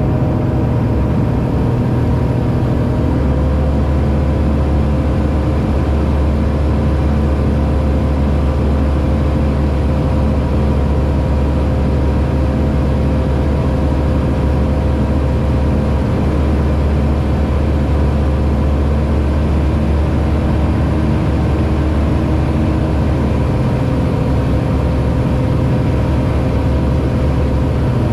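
Aquila A210 light aircraft's Rotax 912 S four-cylinder engine and propeller running steadily in flight. The engine note shifts slightly about three seconds in and again near the end.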